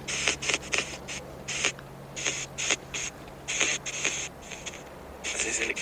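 Spirit box app on a phone sweeping, giving choppy bursts of hissing static several times a second, with short gaps between them, as it scans for an answer.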